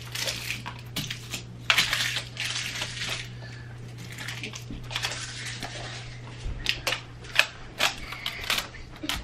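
Plastic Play-Doh tubs and their packaging being handled: a scatter of irregular sharp clicks and taps with rustling, densest about two seconds in.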